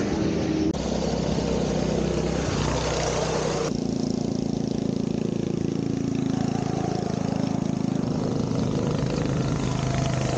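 Snowmobile engines running steadily, with abrupt changes in the sound just under a second in and again about four seconds in.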